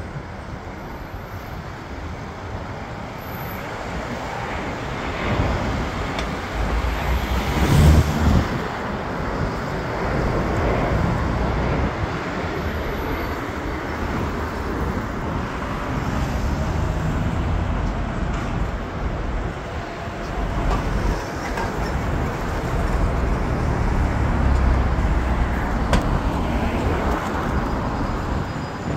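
Road traffic going by steadily, with one vehicle passing close and loud about eight seconds in.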